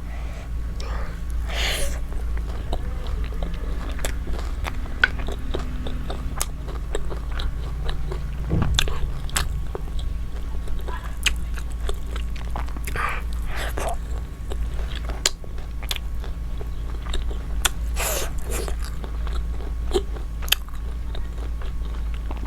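Close-miked eating: chewing and biting, with frequent sharp clicks and mouth smacks and a few short slurping or crunching bursts, over a steady low hum.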